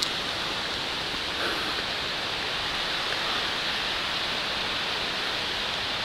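Waterfall rushing: a steady, even rush of falling water.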